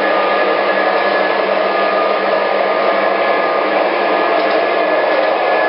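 MTH O-gauge model freight train running on three-rail track: a steady whirring rush from its wheels and motors, mixed with the locomotives' electronic diesel engine sound. Faint high whines hold steady under the rush.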